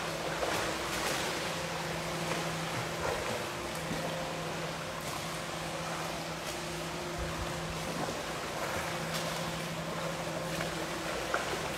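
Steady rush of water from a counter-current swim unit, with its pump's low steady hum and the splashing of a swimmer's arm strokes against the current.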